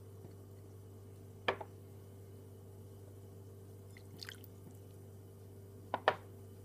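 Glass and utensils knocking against a glass mixing bowl: one sharp knock about one and a half seconds in, a faint clink around four seconds, and a louder double clink near the end, over a low steady hum.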